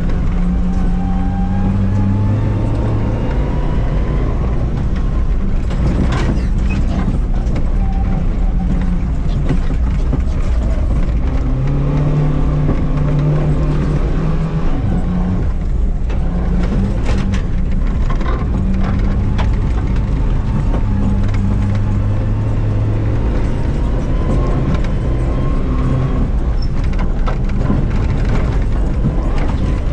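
Rally car engine heard loud from inside the stripped cabin, pulling hard and changing pitch in steps as it accelerates and shifts gear, with a rising whine. Scattered sharp knocks, typical of stones and dirt hitting the underside on a loose track.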